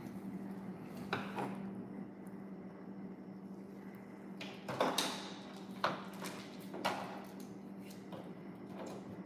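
Scattered light clicks and knocks of plastic toy pieces and play-dough tools handled on a table, a cluster about five seconds in the loudest, over a steady low hum.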